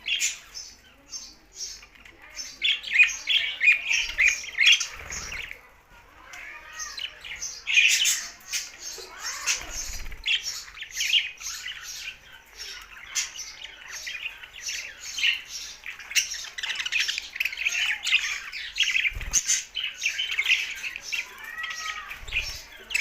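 Budgerigars chattering: a continuous stream of quick chirps, squawks and warbles, with a brief lull about five seconds in.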